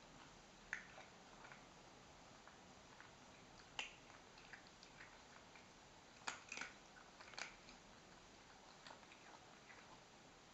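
A cat eating from a plastic bowl: faint, irregular clicks of chewing, with a few sharper ones now and then.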